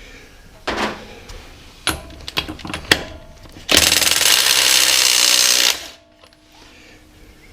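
A few sharp metallic clanks, then an impact wrench hammers loudly for about two seconds, undoing a car's wheel lug nut, and stops abruptly.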